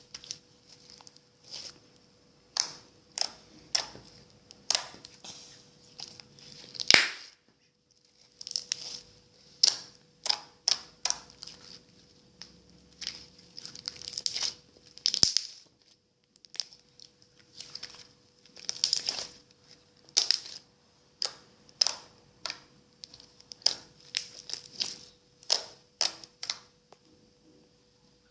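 Slime being squeezed and pressed by hand, making irregular short crackly pops and squishes in clusters with brief pauses between them.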